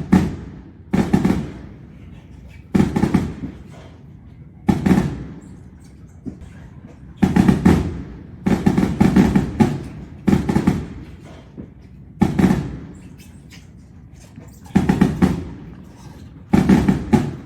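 Fireworks going off: about a dozen loud bangs at uneven gaps, some in quick pairs, each with a short rumbling echo.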